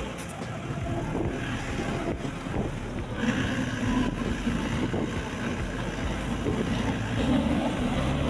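Wind buffeting the microphone over a low, steady engine rumble, with a faint wavering hum coming in about three seconds in.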